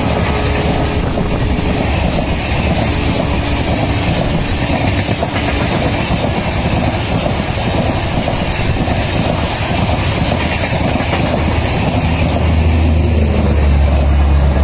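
Full LHB rake of Humsafar Express coaches running through a station without stopping: a steady rush of wheels on rail with clatter from the passing bogies. Near the end a deep low hum grows louder as the luggage brake & generator car, carrying the train's diesel generator sets, goes past.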